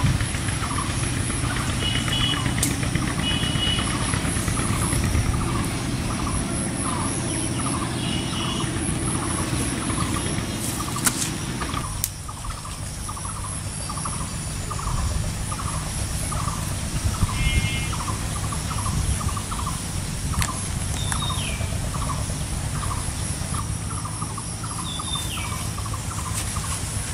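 Rural outdoor ambience under a steady low rumble that eases slightly about twelve seconds in. A short call repeats about twice a second throughout, with a few bird chirps, two short falling whistles and occasional faint knocks.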